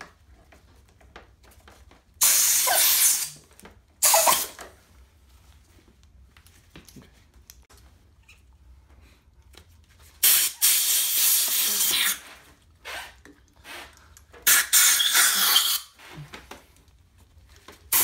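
Bursts of hissing compressed air from an air-compressor hose nozzle forced under a motorcycle's rubber handlebar grip, to break its glue so the grip comes off. Four blasts: two short ones a few seconds in, then two longer ones of a second or two later on.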